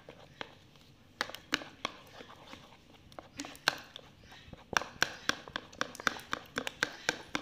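Metal spoon beating a thick flour-and-water jalebi batter in a bowl, clicking against the side of the bowl in a quick, irregular series of taps that come faster, about three a second, in the second half.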